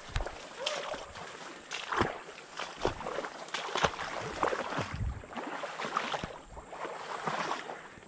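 Footsteps wading through shallow swamp water and wet marsh grass: irregular sloshing, splashing steps. A short whistled note sounds just under a second in.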